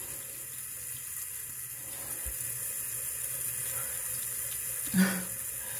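Water running steadily from a tap into a bathroom sink.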